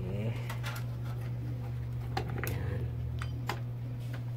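Several sharp plastic clicks and knocks from fitting and locking a CPU cooler's clips onto a motherboard, over a steady low hum.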